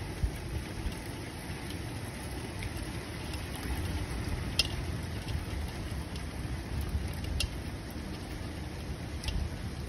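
Steady rain during a thunderstorm, with a low rumble underneath that swells a little midway, and three sharp taps of drops striking close by, the loudest about halfway through.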